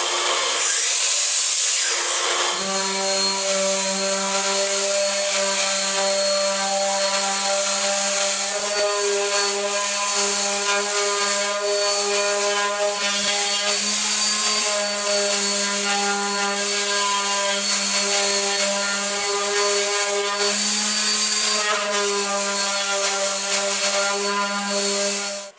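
A Kobalt miter saw cutting a pallet-wood plank for the first couple of seconds, then an electric random orbital sander running steadily on a small pine board with an even motor hum over a sanding hiss. The sander cuts off suddenly at the end.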